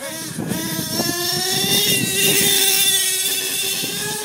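HPI Savage radio-controlled monster truck's small engine running at high revs, a steady high-pitched drone whose pitch creeps slowly upward.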